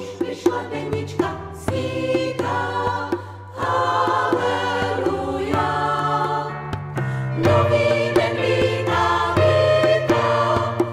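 Women's choir singing in harmony over a low sustained accompaniment, with light percussive taps.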